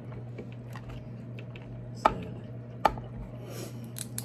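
King crab leg shells being cracked and picked apart by hand: two sharp cracks, a little under a second apart, about halfway through, with faint clicks and shell rustles around them.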